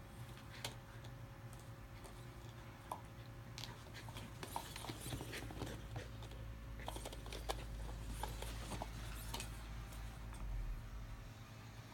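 Small dog mouthing and pawing a hard plastic toy bone: scattered light clicks and knocks of teeth and claws on plastic, thickest through the middle of the stretch.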